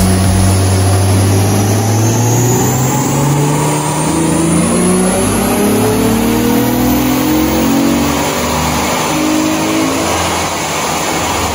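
Holden VF Commodore's direct-injected V6 with a VCM over-the-radiator cold-air intake, running on its stock tune, accelerating hard on a chassis dyno in a full-throttle pull. Its note rises steadily in pitch as the revs climb, with a deep growl from the intake.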